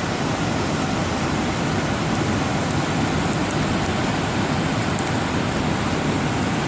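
Heavy rain falling, a steady hiss with a few faint sharp ticks in it.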